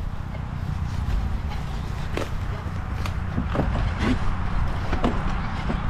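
Cyclocross bike ridden along a dirt trail: a steady low rumble of tyres and wind, with irregular knocks and rattles as the bike goes over bumps.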